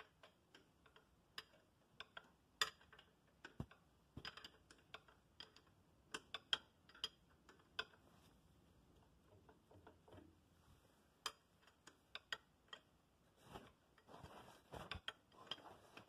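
Faint, irregular metallic clicks and taps of a hand wrench working the brake band adjuster on a Gibson tractor, with a few sharper knocks among them.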